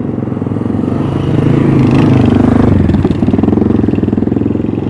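A motor vehicle's engine passes close by on a city street. It grows louder to a peak about two seconds in, then drops in pitch and eases off as it goes by.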